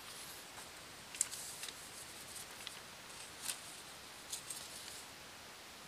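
Faint crinkling of a sheet of paper being handled and pressed into a plastic basket as a liner: a few short, sharp crackles over a low hiss.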